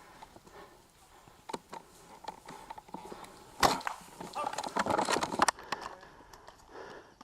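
Dry twigs and leaf litter crackling and snapping, with a single sharp snap about three and a half seconds in and a dense run of crackling just after it.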